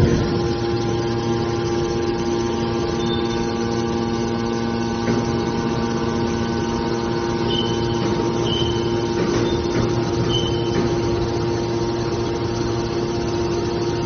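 Hydraulic scrap-metal baler's electric motor and hydraulic pump running with a steady hum of several held tones while its cylinders work the press lid. A few short high squeaks come about halfway through.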